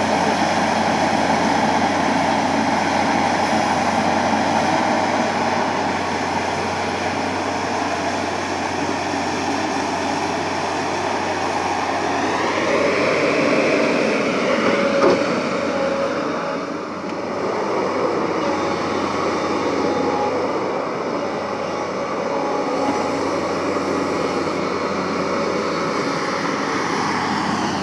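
Excavator's diesel engine running steadily, with a higher whine that rises and falls about halfway through and a single sharp click in the middle.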